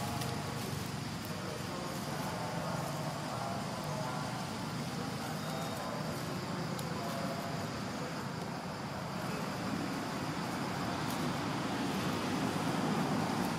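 Steady low rumble and hum of background road traffic.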